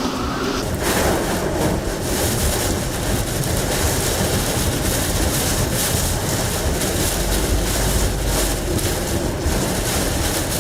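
Hurricane wind blowing hard in gusts and buffeting the microphone: a loud, steady rush across all pitches with a heavy low rumble. The sound changes abruptly about a second in.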